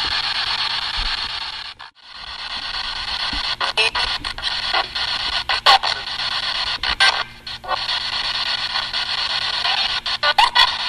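Spirit box scanning through radio stations: a steady hiss of static broken by choppy cuts and short blips of radio sound as it sweeps, with a brief dropout about two seconds in.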